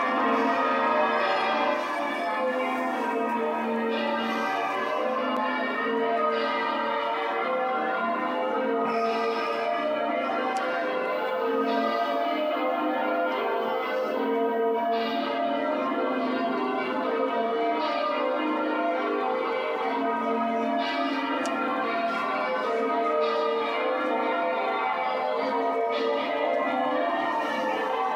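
The church bells of York Minster rung in changes: bells struck one after another in a continuous run, their tones overlapping without a break.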